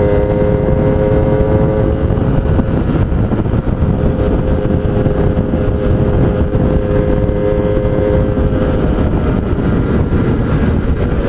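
Suzuki Tornado GS motorcycle engine running while the bike is ridden, a steady engine note over heavy rushing noise that fades somewhat near the end. The throttle response is late, as the rider remarks.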